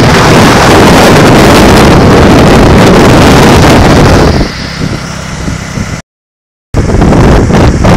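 Wind buffeting the microphone on a moving Can-Am Spyder, with the trike's V-twin engine running steadily underneath. The wind eases about four and a half seconds in, the sound cuts out completely for under a second about six seconds in, then the wind and engine return.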